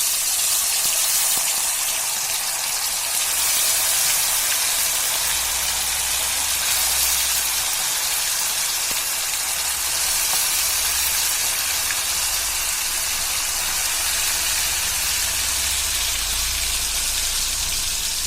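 Marinated chicken 65 pieces deep-frying in hot oil in a kadai: a loud, steady sizzle.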